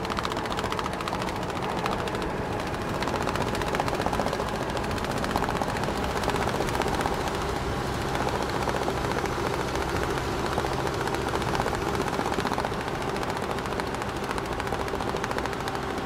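Large truck driving, its engine running steadily under a fast, dense rattle of loose straps slapping against the truck.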